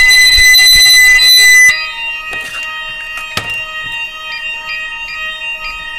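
Building fire alarm sounding a loud, steady multi-tone ring. Under two seconds in it drops sharply in level and carries on more quietly, with faint repeating pips and a single click.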